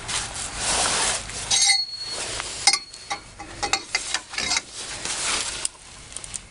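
Steel tools clinking and ringing against the rusted hub bolts, with sharp ringing strikes about a second and a half and nearly three seconds in, over a steady hiss.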